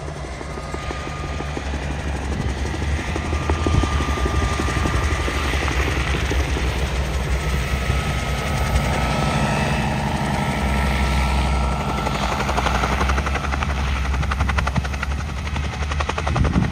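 Helicopter landing close by: a rapid rotor beat over the engine, with a faint thin whine. It grows louder over the first few seconds and then holds steady.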